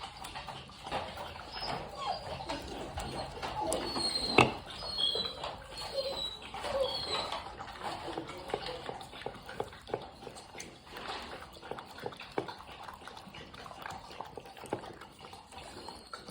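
A 7-week-old American Bully puppy gnawing a raw knuckle bone: irregular clicks and scrapes of teeth on bone, with a sharp knock about four seconds in and a few short high squeaks.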